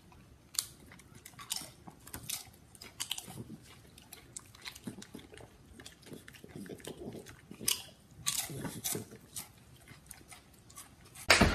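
A dog chewing on something hard, with irregular sharp crunches, several a second at times.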